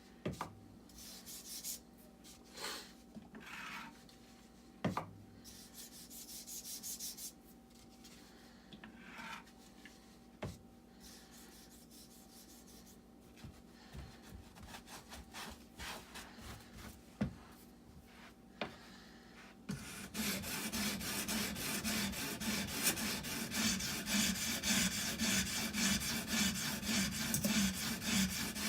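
Scattered clicks and small handling knocks, then about two-thirds of the way in, continuous rapid back-and-forth scraping of a wet Edge Pro water stone stroked along a small hunting knife's edge.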